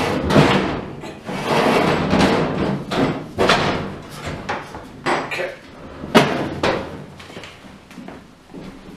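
Metal warming oven being worked loose and lifted off the top of a wood cook stove: scraping and rattling metal with several sharp clanks in the second half.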